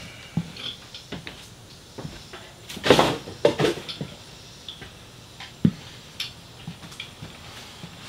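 Scattered knocks, clunks and rustles of objects being picked up, moved and set down, loudest in a short cluster about three seconds in, with one sharp knock a little before six seconds.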